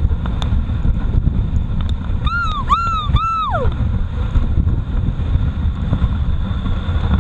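Steady rushing noise of a dog sled running fast over snow behind a two-dog team, with wind buffeting the microphone. About two seconds in come three short, high, arching calls, the last one sliding down in pitch.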